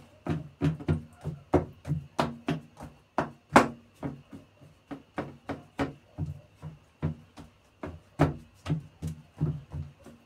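Fingertips pressing and tapping pizza dough into a metal baking tray: a quick, irregular run of soft thumps and clicks, about three a second, with one sharper knock about three and a half seconds in.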